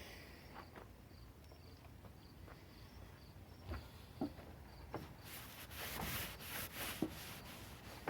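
Faint hissy rubbing or scraping strokes, repeated several times a second over the last three seconds, from hand work on a fiberglass repair. Faint chirps, like crickets, repeat in the background during the first half.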